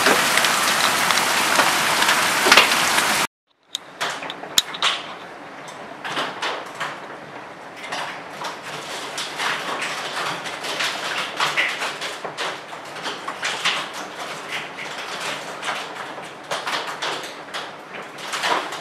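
Hailstorm with heavy rain: a loud, dense hiss of pelting hail and rain that cuts off abruptly about three seconds in. After a brief silence, a quieter steady downpour with many irregular sharp taps of stones and drops striking.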